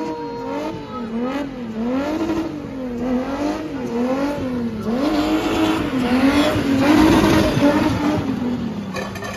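A spinning car's engine revving up and down over and over, about once every two-thirds of a second, as the car spins on the pad. It grows louder with a hiss of tyre noise from about five seconds in and eases off near the end.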